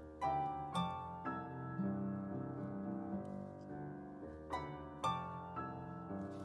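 Chamber ensemble playing: harp and classical guitar pluck a repeating rock-like ostinato over piano, each note striking sharply and ringing out.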